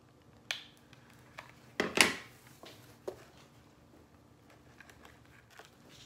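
Quiet handling of rope and a plastic hot glue gun: a few soft clicks, and one louder knock about two seconds in as the glue gun is set down on a stone countertop.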